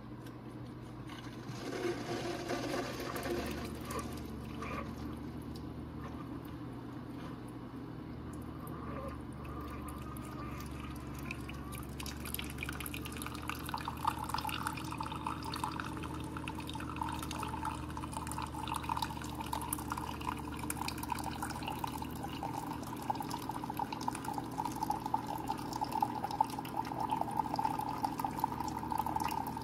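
Keurig K-Supreme Smart single-serve coffee maker brewing a cup: a low hum sets in about three seconds in. From about halfway, hot coffee streams and trickles steadily into the mug, growing a little louder near the end.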